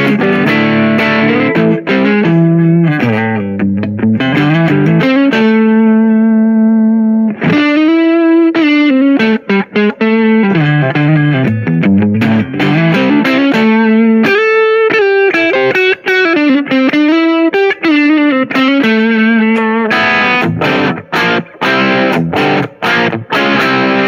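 Grote ST-style HSS electric guitar playing picked lead lines that climb and fall, with one note held for about two seconds early on and quick repeated picked notes near the end.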